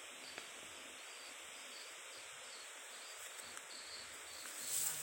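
Forest insects, crickets or cicadas, chirring in a steady high-pitched drone with a faint pulsing. There are a few faint soft ticks of footsteps on a dirt trail, and a brief louder rustle just before the end.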